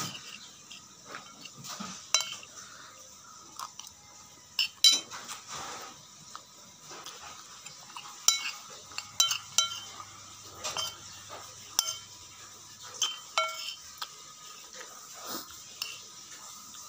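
Metal spoon clinking and scraping against a plate in scattered, irregular clicks as the last rice is scooped up.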